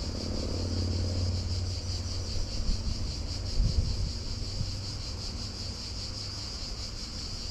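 Wind rumbling on the microphone over a steady, high insect chorus that flutters slightly, with a couple of soft bumps near the middle.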